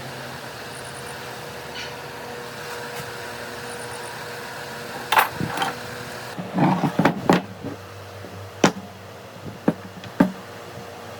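A string of sharp knocks and clicks starting about halfway through, several close together and then single ones, over a steady mechanical hum.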